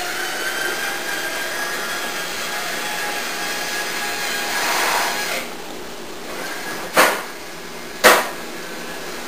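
An automatic cat litter box's motor whirring steadily, stopping about five and a half seconds in. A cat then hisses twice, two short, loud hisses about a second apart.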